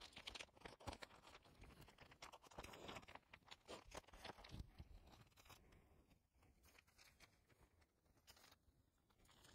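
Faint rustling and light clicks of photocards and plastic binder sleeves being handled, dying away to near silence after about five seconds.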